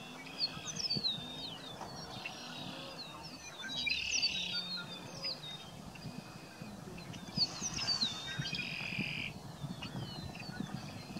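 Greater prairie chickens displaying on a lek: the males' booming, a low hollow moan repeated again and again, with higher sliding calls over the top.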